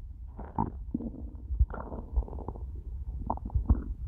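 Empty human stomach growling and gurgling in a string of short, irregular gurgles, the sign of hunger after a whole day without food.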